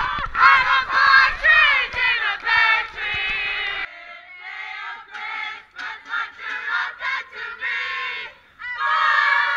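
A large group of people singing and shouting together in a loud, rowdy singalong. A low rumble on the microphone runs under the first few seconds, and the voices grow loud again near the end.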